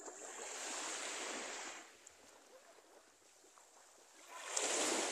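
Small waves washing up on a sandy, pebbly shore, twice: a soft rush in the first two seconds, then a louder one near the end.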